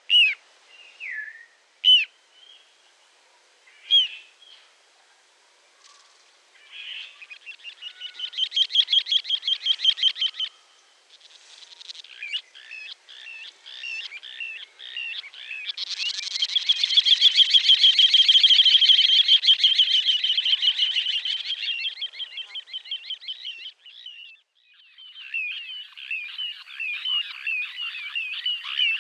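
Rainforest ambience: a few sharp bird chirps, then rapid pulsing trills and runs of repeated chirps. The loudest is a long trill lasting several seconds about halfway through.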